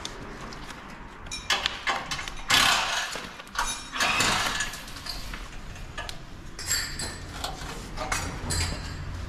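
Handling noise: rustling and scattered light clinks as hands work around the rear wheel of a new dirt bike. There are louder rustling bursts about two and a half and four seconds in.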